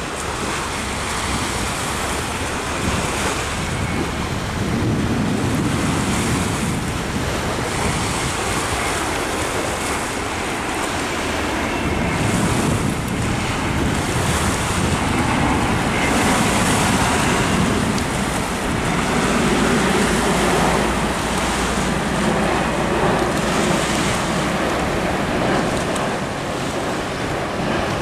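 Wind gusting on the microphone over waves washing on the beach: a steady rushing noise that swells and eases. A faint low hum comes in about two-thirds of the way through.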